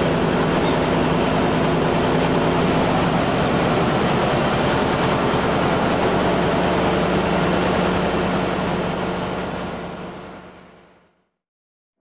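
Loud, steady engine-room machinery noise: running machinery with a steady hum and a fast low throb, fading out near the end.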